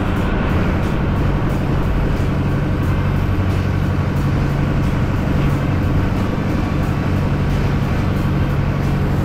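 Yanmar Arashio small boat's engine running steadily under way, with water rushing along the hull.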